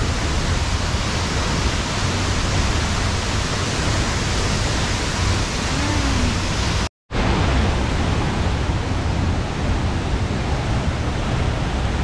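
Waterfall: a steady, loud rush of falling water. It cuts out for a moment about seven seconds in, then resumes.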